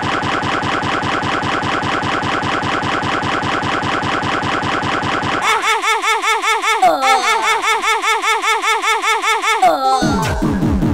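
Thirty Dollar Website emoji sequencer playing back a composition: a fast, evenly repeating stream of short sound-effect samples. About five and a half seconds in it switches to a new pattern with sliding pitched tones, and about ten seconds in to a pattern of low falling tones.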